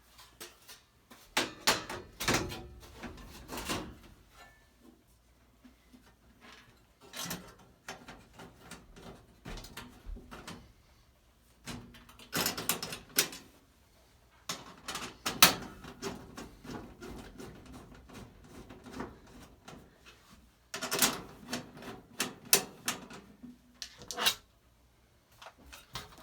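Sheet-metal access panels of a Trane XR80 gas furnace being fitted back on: bursts of clanks, rattles and knocks with short pauses between.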